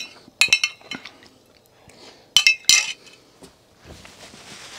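A metal spoon clinking and scraping against a ceramic soup bowl: several sharp clinks, the loudest pair about two and a half seconds in. A soft rustling hiss follows near the end as a cloth wipes the mouth.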